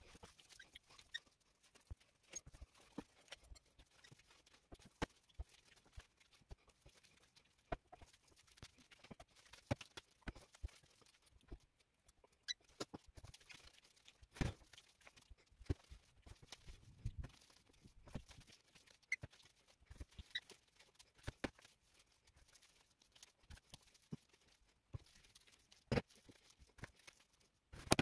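Spiced minced-meat mixture being squeezed and shaped by hands in disposable plastic gloves: faint, irregular squelches and pats, with small taps as the shaped pieces are set down on a tray.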